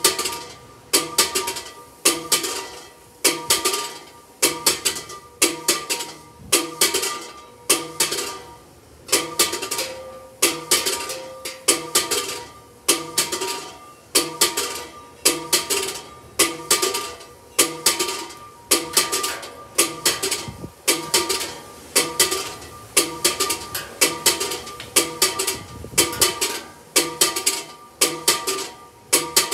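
Large church bell swinging full circle (Spanish volteo), its clapper striking about once a second in an even rhythm, with the bell's tones ringing on between strokes.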